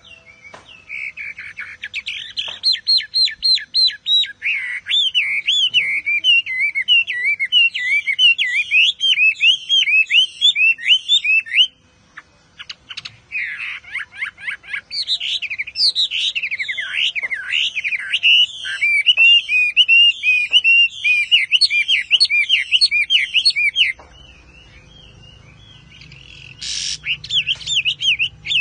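Chinese hwamei (melodious laughingthrush) singing a long, rapid run of sweeping whistled notes, breaking off briefly just before halfway and again for a couple of seconds near the end before starting up once more.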